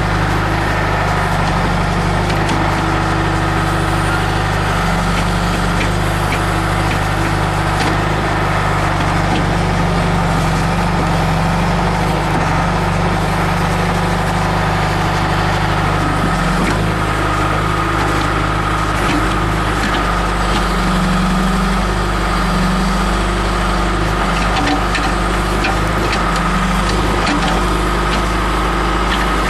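John Deere 310E backhoe loader's diesel engine running continuously, its pitch shifting a little now and then, with a steady high whine over it and scattered light clicks.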